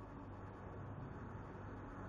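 Faint, steady background hum and hiss with no distinct sound in it.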